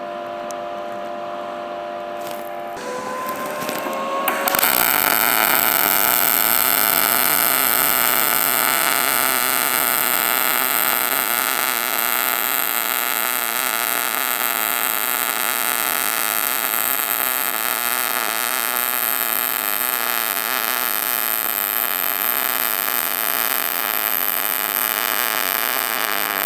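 MIG welding arc from an HTP MIG 2000i inverter welder running 0.030 wire at 18 volts and 320 inches per minute under 75/25 argon-CO2 gas on 1/8 inch steel. It is a steady, even crackling sizzle that starts about four and a half seconds in, after a few seconds of steady hum.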